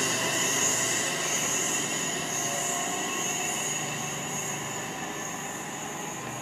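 Class 350 Desiro electric multiple unit running away along curved track, its running noise fading as it recedes, with a high, steady squeal from the wheels on the curve.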